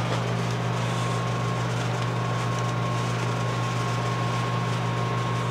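Steady low mechanical hum with a faint thin whine above it, unchanging throughout.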